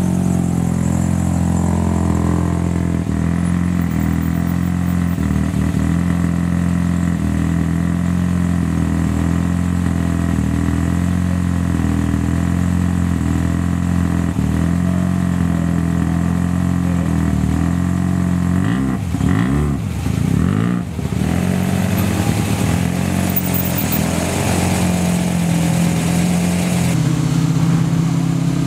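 Classic cars' engines idling and rumbling as they creep past one after another in a slow line. About twenty seconds in, an engine's pitch swings up and down briefly, as with a blip of the throttle or a car passing close.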